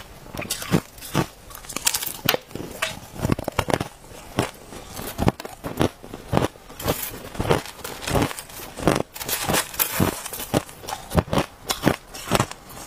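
Crushed ice being chewed close to the microphone: a dense, irregular run of sharp crunches and crackles, several a second.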